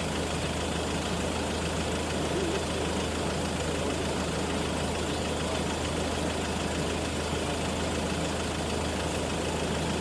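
Land Rover engine idling steadily, with a constant low hum, picked up by a camera on the bonnet.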